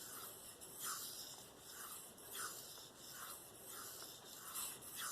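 Knife blade of K390 steel being drawn in repeated freehand strokes across a Venev diamond sharpening stone, a dry scraping rasp about every half second to a second, working the second side of the edge after a burr was raised on the first.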